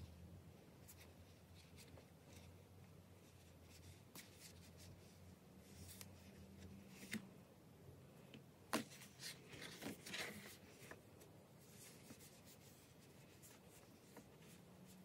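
Faint handling of a notebook by hand: soft rustles of paper and elastic cord with a few light clicks, the sharpest click a little past the middle, followed by a short run of rustling.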